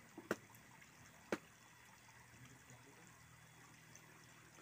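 Near silence: faint, steady background hiss with two sharp clicks about a second apart near the start.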